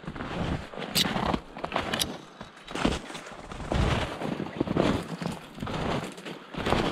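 Footsteps crunching through snow in uneven steps, with saplings and twigs brushing against clothing.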